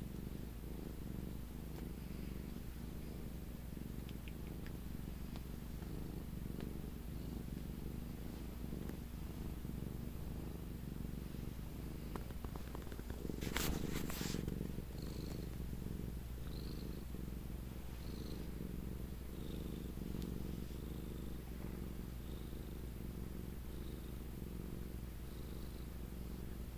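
A domestic cat purring steadily up close, with a brief louder rustle of handling about halfway through.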